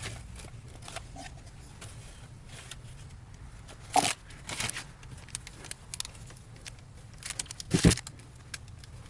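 Scattered clicks and knocks of parts and tools being handled at a workbench while a hub is greased and a bearing set in it. There is a sharp knock about four seconds in and a heavier thud near the end.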